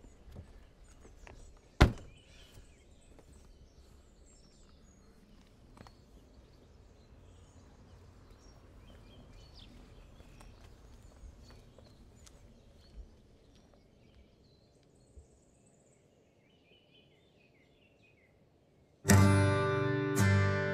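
Quiet outdoor ambience with faint bird chirps and a single sharp thunk about two seconds in. Near the end, strummed acoustic guitar music comes in suddenly and loudly.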